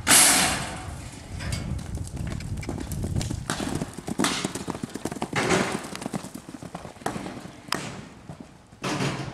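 A sudden loud bang, then racehorses galloping on grass with an irregular run of hoofbeats.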